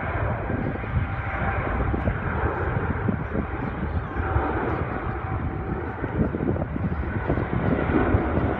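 Boeing 777 freighter's twin GE90 turbofan engines running at high thrust during its departure, a steady, dense jet roar.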